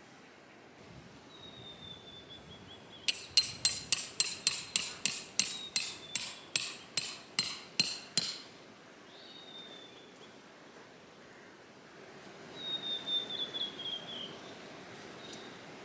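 A run of about seventeen ringing metal hammer blows, roughly three a second, typical of tent pegs being hammered into the ground while pitching a tent. Near the end comes a softer, shorter burst of knocks.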